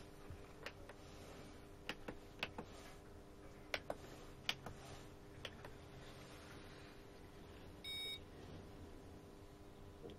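Faint low hum with scattered light clicks, then a single short electronic beep about eight seconds in.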